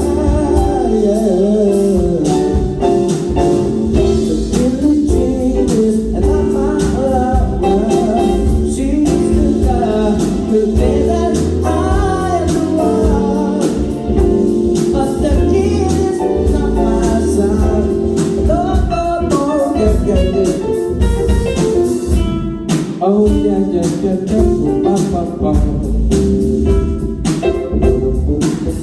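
Music: a band with bass, drums and guitar playing, with a singing voice over it.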